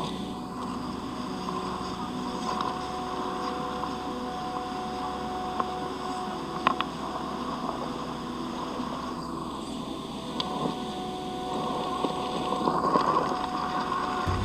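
Electric RC crawler's brushed motor and geared drivetrain whining steadily as it crawls. A few sharp clicks sound in the middle, and it grows louder and busier near the end.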